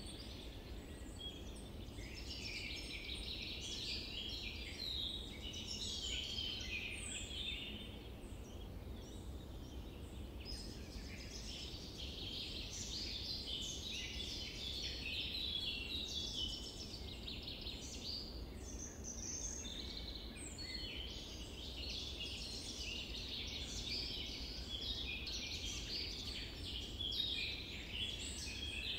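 A dense chorus of many small birds chirping and twittering without a break, over a steady low rumble.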